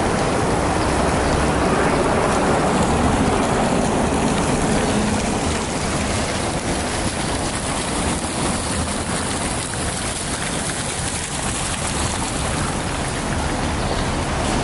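Splashing water from a public fountain over city street traffic noise, the splashing somewhat fainter after about five seconds.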